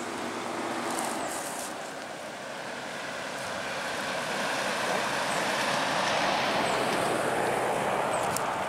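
A four-wheel-drive ute passing at highway speed: a rushing tyre-and-engine noise that builds over several seconds, is loudest about six seconds in, and begins to fade near the end.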